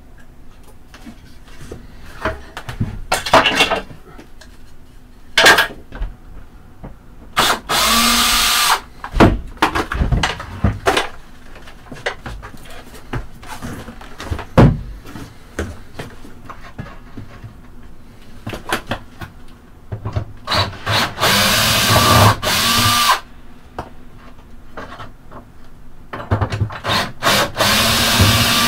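Cordless drill/driver running in three bursts of a couple of seconds each, its motor pitch winding up and down, with sharp knocks and clatter of tools against wood in between.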